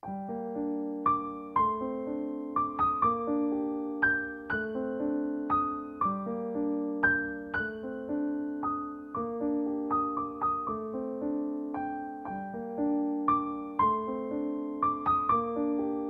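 Background piano music: a gentle melody of single struck notes over repeated low chords, starting abruptly with a cut.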